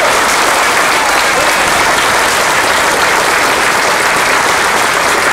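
A large crowd applauding, clapping steadily, with a faint cheer about a second and a half in.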